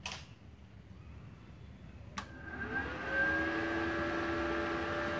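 Multipro TIG 200A-SA inverter welder switched on with a click about two seconds in; its cooling fan spins up, rising in pitch, then runs with a steady hum. A fainter click comes right at the start.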